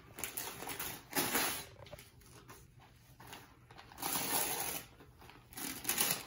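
Wrapping paper being torn and crinkled by hand as a gift is unwrapped, in a few short rustling bursts.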